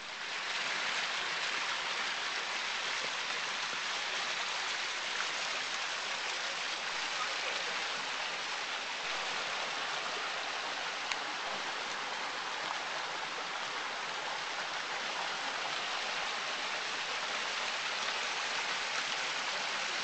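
Rainforest stream rushing over rocks: a steady rush of water that comes up sharply within the first second and then holds even.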